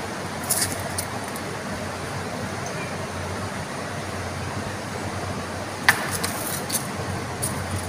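Small bell on a kitten's collar jingling in short, scattered tinkles as the kitten moves, with one sharper click about six seconds in, over a steady background hiss.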